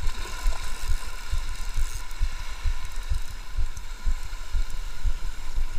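Small spinning reel (Shimano Stradic 1000HG) being cranked steadily to bring in a hooked fish, a faint even whir under irregular low thumps.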